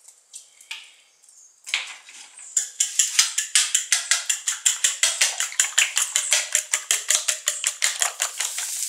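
Eggs being beaten with a fork in a bowl: the fork clicks rapidly and steadily against the bowl's side, about six or seven strokes a second, starting about two seconds in.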